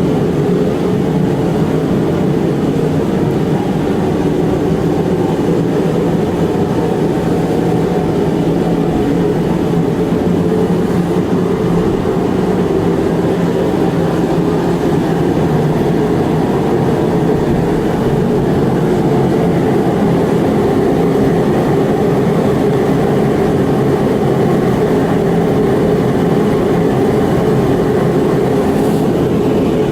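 Mr. Heater 60,000 BTU forced-air propane heater running: its blower fan and burner make a loud, steady rushing noise with a low hum.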